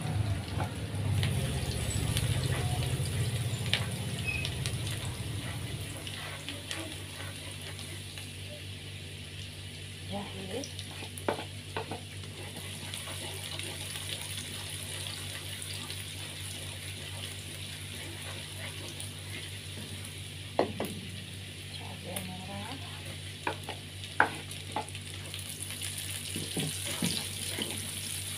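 Minced garlic and chilli sizzling in oil in a non-stick wok, stirred with a spatula, with a few sharp clicks of the spatula against the pan. A low rumble sits under the sizzle for the first few seconds.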